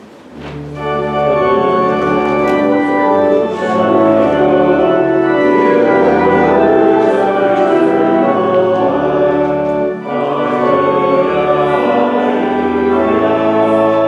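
Church organ playing sustained chords over a moving pedal bass, starting about half a second in, with a brief break near ten seconds.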